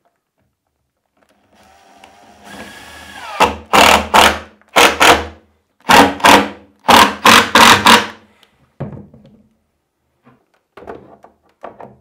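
Cordless drill/driver driving screws into plywood: the motor whirs up, then about ten loud, short bursts follow one another as the screws are driven home. A few quieter knocks follow near the end.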